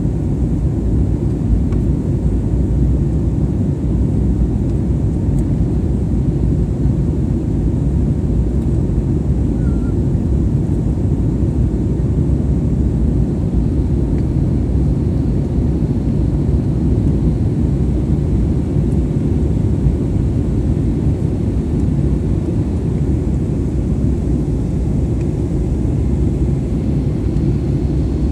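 Steady low rumble of jet engines and rushing air heard inside an airliner cabin in flight.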